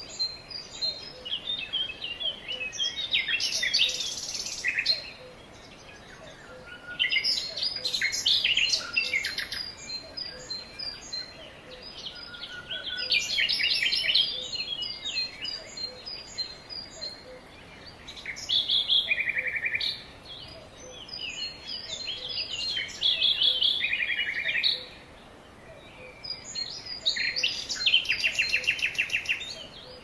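Songbirds singing in a forest: a loud song phrase comes back every four to five seconds, some phrases ending in a fast trill, with softer chirps from other birds between them.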